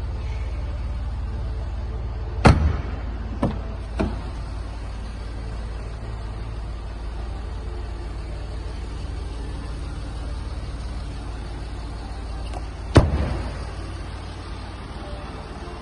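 Car doors of a Jaguar XF Sportbrake being shut: a heavy thud about two and a half seconds in with two lighter knocks just after, and another heavy thud with a short ring about thirteen seconds in, over a steady low rumble.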